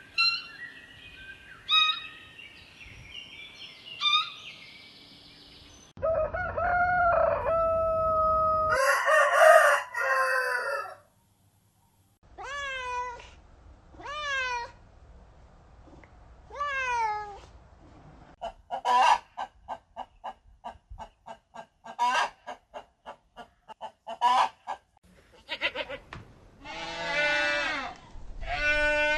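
Chickens calling: a rooster crowing several times between runs of quick hen clucks.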